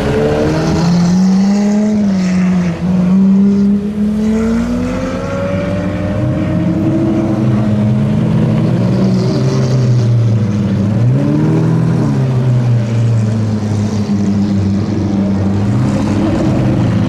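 Lamborghini V12 and V10 supercar engines running at low speed as the cars roll past one after another, several engines overlapping, with repeated throttle blips that make the pitch rise and fall.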